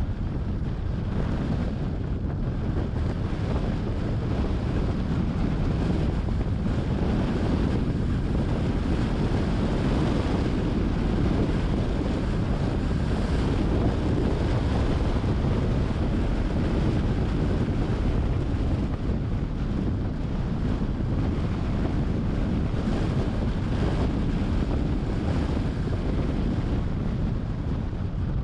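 Steady wind rushing over the microphone of a camera on a moving car, over the low rumble of the car's road and tyre noise.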